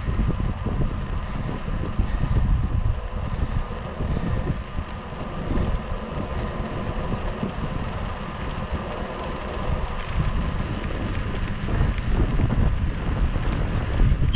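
Wind buffeting the microphone of a camera mounted on a moving bicycle: a continuous rush with an uneven, gusting low rumble.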